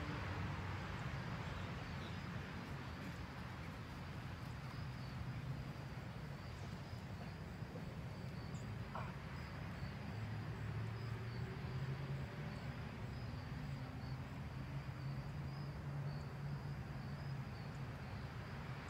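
Open-air ambience: insects chirping in a steady, evenly pulsing high trill over a low, steady rumble.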